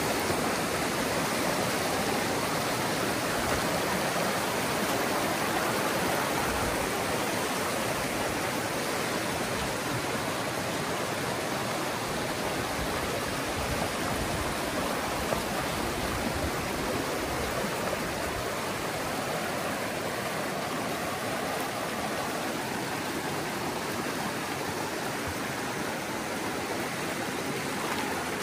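A river's flowing water rushing steadily and evenly.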